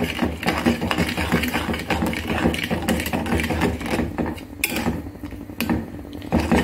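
Flat wooden spatula scraping and knocking around a metal kadhai in quick repeated strokes as wet orange pulp and sugar are stirred during cooking.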